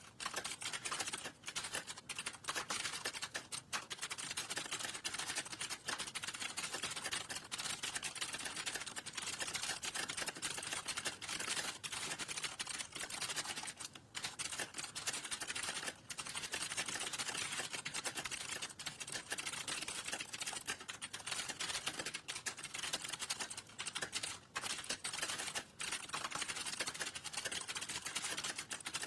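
Fast, continuous typing on a computer keyboard: rapid key clicks, with a few brief pauses.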